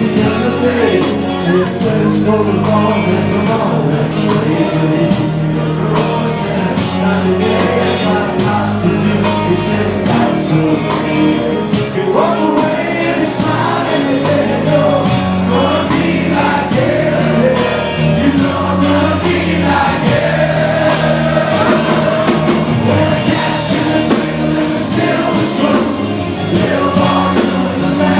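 Live rock band playing with a lead vocal and a steady drum beat.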